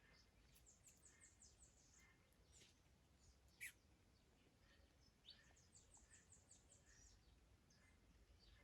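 Small birds singing faintly: quick runs of high, falling notes, about a second in and again near the end, with softer lower chirps between them. One sharp high call about three and a half seconds in is the loudest sound.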